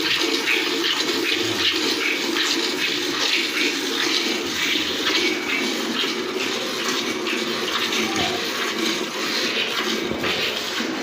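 Milk squirting from a cow's teats into a pail during hand milking: a steady run of short squirts, one after another.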